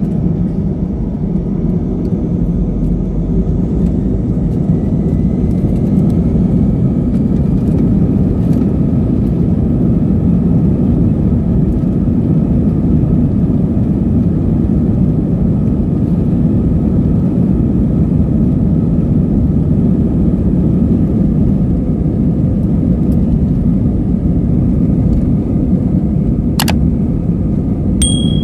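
Steady rumble of an Airbus A320-family jet's engines at low taxi thrust, heard from inside the passenger cabin. A faint rising whine comes in a few seconds in, and near the end there is a sharp click followed by a short high beep.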